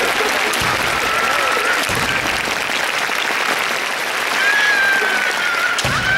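Audience applause: a large crowd of spectators clapping steadily, with a long high held shout rising over it in the second half.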